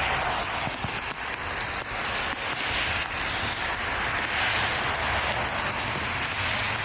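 Strong gusty wind rushing and buffeting the microphone, swelling and easing in gusts over a low rumble.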